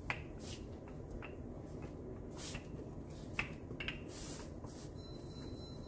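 Wooden rolling pin rolling out dough on parchment paper: soft rustling of the paper with a few light clicks and knocks scattered through.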